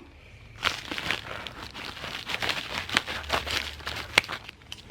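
Jewelry packaging being handled and opened by hand: irregular crinkling and crackling with scattered small clicks, starting about half a second in.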